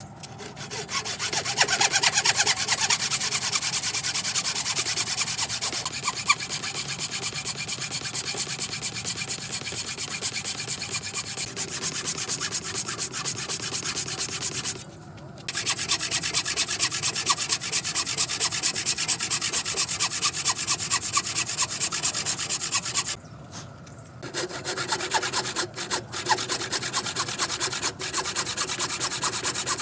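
A thin saw blade cutting through a hardwood post, a steady fast rasping of teeth in wood, broken by two short pauses about halfway and about two-thirds of the way through.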